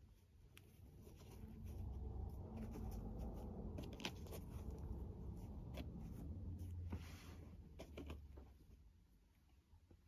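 Soft rubbing and rustling as hands stroke and turn a coonskin fur hat on a cutting mat, with a low rumble and a few light clicks; it swells about a second in and fades near the end.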